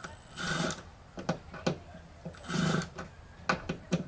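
Small cordless screwdriver backing out tiny screws from a flat-screen TV's back cover: two short whirring runs about two seconds apart, with sharp clicks of the screws and tool in between.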